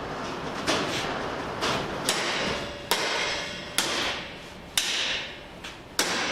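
About seven sharp knocks at irregular intervals of roughly a second, from metalwork on an aluminium fuel tank. Each knock is followed by a brief fading hiss.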